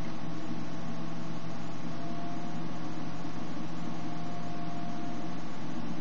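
Steady background hiss with a low electrical hum and a faint steady tone underneath, unchanging throughout.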